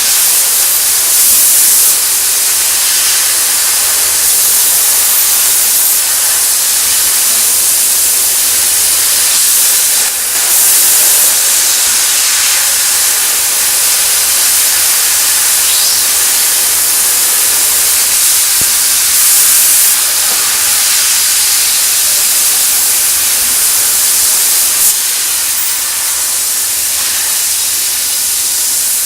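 Prima Power Platino fiber laser cutting machine cutting 8 mm steel plate: a steady, loud hiss of the assist-gas jet at the cutting head, with a few brief louder surges.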